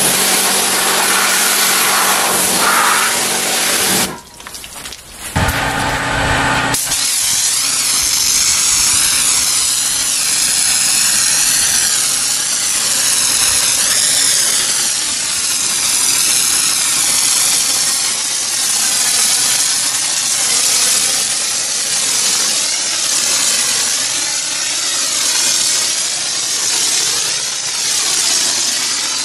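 Pressure washer spraying water, a steady hiss over the hum of its motor. It cuts out briefly about four seconds in, then starts again.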